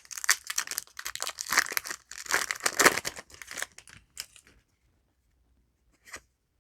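Foil trading-card booster pack being crinkled and torn open, a dense crackling rustle for about four seconds, followed by a couple of brief light rustles.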